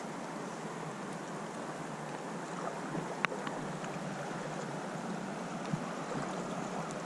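Steady rushing noise of creek water and wind, with a single sharp click about three seconds in.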